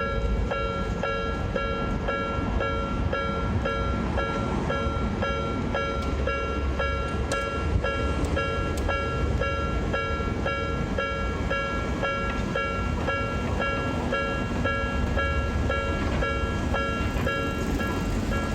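Japanese level-crossing alarm ringing its rapid, even two-tone 'kan-kan', about two strokes a second, while a train rumbles through the crossing.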